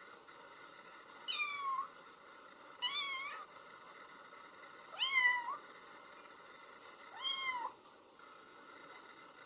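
A domestic cat meowing four times, each meow about half a second long and roughly two seconds apart, over a faint steady hiss.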